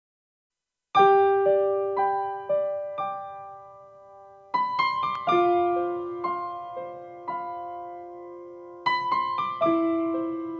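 Solo piano playing slow, gentle music. The first second is silent, then a chord is struck, followed by single notes about twice a second that ring and fade, with fresh chords about halfway through and near the end.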